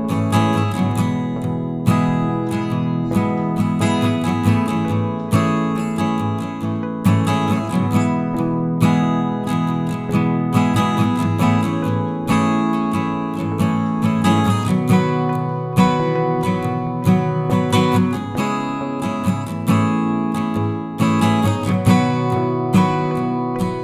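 Background music: acoustic guitar strumming a steady, upbeat rhythm.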